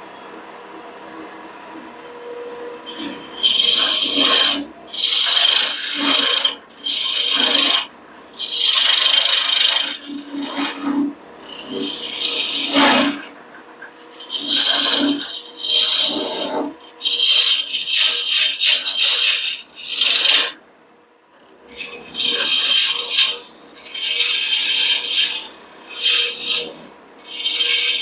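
Wood lathe running with a faint steady hum, then a turning tool cutting a spinning walnut blank from about three seconds in: repeated passes of rough scraping cut, each about a second long with short breaks between.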